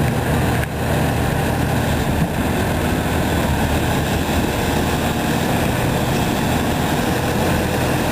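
McNeilus front-loader garbage truck's diesel engine running steadily while its hydraulic front arms lift a loaded container up over the cab, with a brief clunk about two seconds in.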